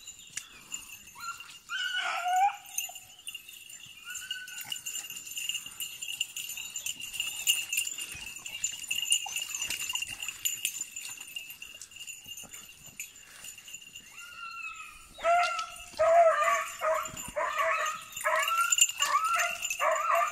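Beagles giving tongue on a hare's trail: a few single yelps, then from about fifteen seconds in a fast run of repeated yelping barks as the pack opens up. A steady high ringing sounds underneath for most of the time.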